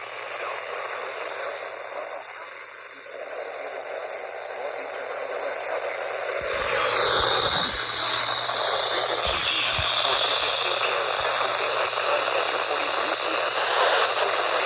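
Radio receiver static between broadcasts: a steady hiss over a low hum, growing louder about six seconds in, with crackles and low thumps.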